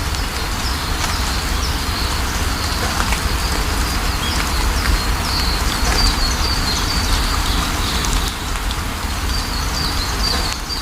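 Steady rain falling, with small birds calling over it in many short, high chirps, and a deep low rumble underneath.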